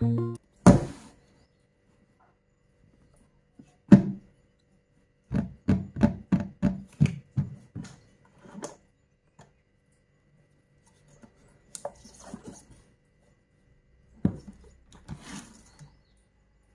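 Cardboard box handled by hand: a knock near the start and another about four seconds in, then a quick run of about eight knocks, followed by scattered taps and a little rustling.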